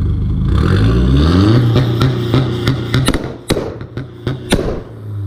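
Turbocharged VW Jetta engine revved up against a two-step launch limiter and held there. It lets off a string of sharp exhaust bangs, some eight or nine over about two and a half seconds: the limiter cutting the ignition so that fuel fires off in the exhaust.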